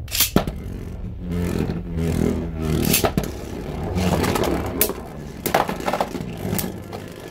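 Beyblade Burst Surge spinning tops, one a Glide Roktavor R6, launched into a plastic stadium near the start, then whirring and scraping across its floor, with sharp clacks as they hit each other.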